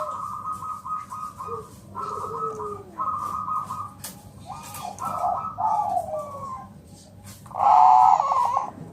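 Zebra doves of the Bangkok song strain (perkutut Bangkok) cooing in repeated trilled phrases, with a louder, fuller coo near the end.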